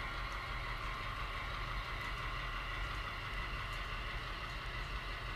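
Model train of ten boxcars behind a GP7 model locomotive running on the layout: a steady, even running noise of wheels on track and the locomotive's motor.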